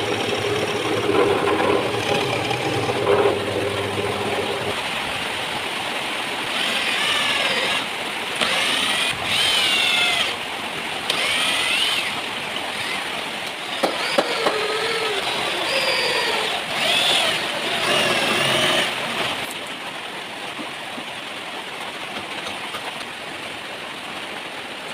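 Drum sander's electric motor running with a steady hum, then a series of wavering high-pitched whines in short spells lasting about thirteen seconds, before settling back to a quieter steady run.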